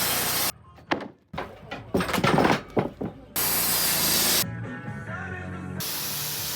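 Background music, cut across by bursts of hissing noise that start and stop abruptly, over a steady low hum.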